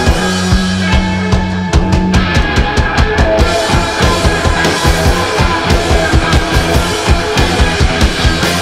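Rock band playing live, the drum kit keeping a fast, steady beat under the rest of the band.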